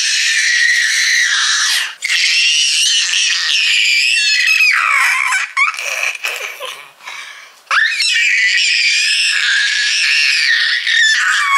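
A toddler screaming in long, loud, high-pitched shrieks, broken by a quieter stretch of a couple of seconds about halfway through.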